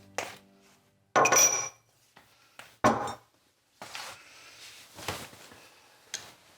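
A few separate clinks and knocks of dishes and utensils, with short ringing; the loudest come just after a second in and near three seconds in.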